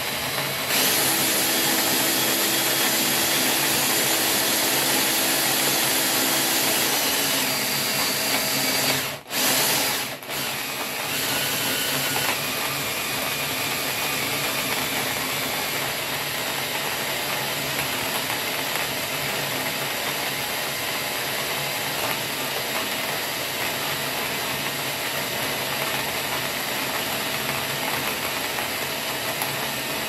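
Makita 18V cordless drill running steadily as it turns the burrs of a manual coffee grinder, grinding coffee beans. The drill stops briefly twice about nine and ten seconds in, then runs on a little quieter.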